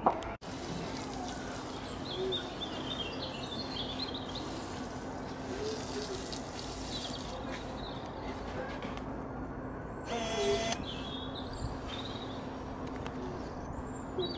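Outdoor garden ambience: a steady background hiss with a faint constant hum, and birds chirping now and then. A short, high-pitched call stands out about ten seconds in.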